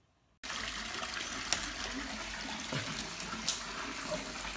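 Water running steadily, as from a bathtub tap, starting suddenly about half a second in, with a few light knocks.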